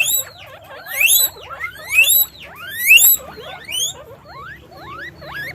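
Guinea pig squeaking: a run of shrill calls that each sweep upward in pitch, a loud one about once a second with softer ones between, the calls growing quieter over the last two seconds.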